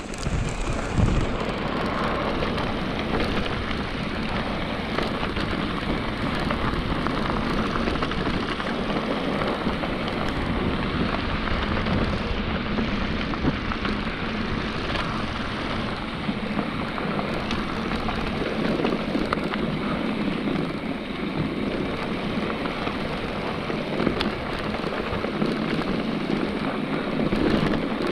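Steady rushing ride noise of an electric mountain bike descending a dirt trail at speed: tyres running over packed dirt and small stones, with a few sharp clicks and rattles from the bike.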